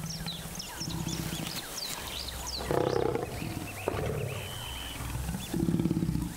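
Adolescent lion growling: low, rumbling growls in several bouts, with a louder one about three seconds in.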